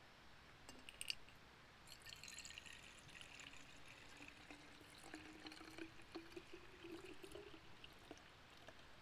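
Liquid being poured into a container, with a faint low tone that slowly rises as it fills, after a single click about a second in.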